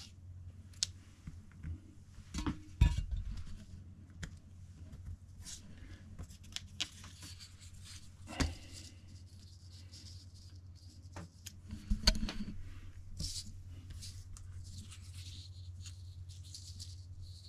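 Vinyl stickers being handled and laid out on a rubber-matted workbench: light rustling and scattered taps and clicks, with a couple of louder knocks about three seconds in and about twelve seconds in, over a steady low hum.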